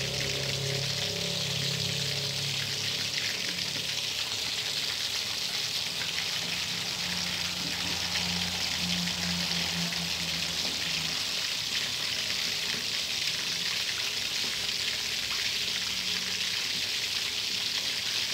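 Sun-dried red tilapia deep-frying in a pan of hot oil: a steady, even sizzle of bubbling oil.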